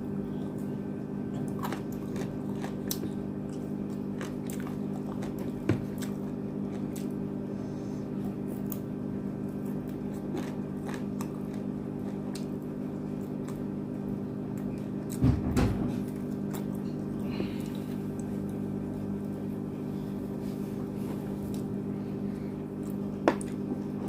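Someone chewing and biting into tandoori chicken, with scattered small clicks and a louder knock about fifteen seconds in, over a steady low hum.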